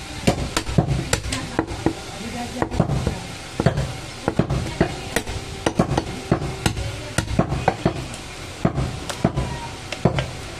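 A butcher's large knife chopping goat meat on a round wooden chopping block: sharp knocks at an uneven pace, about two a second.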